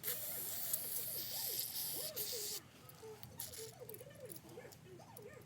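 Spray hissing during carburettor cleaning: one loud hiss for about two and a half seconds that cuts off suddenly, then a short burst of hiss and light clicks and rattles of handled parts.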